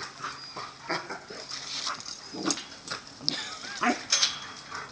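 Two American Staffordshire Terriers play-fighting, making intermittent short vocal sounds and scuffles, a little louder in the second half.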